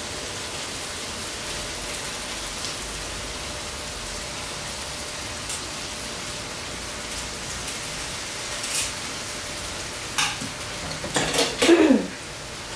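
Chicken pieces sizzling as they fry in spice paste and oil in a wok, a steady hiss with small clicks of a spatula stirring. Near the end comes a short cluster of louder knocks and scrapes.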